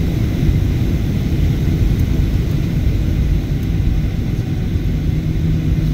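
Steady low cabin rumble of a Boeing 737 airliner taxiing after landing, with its jet engines running and its wheels rolling on the taxiway. A low steady hum sets in near the end.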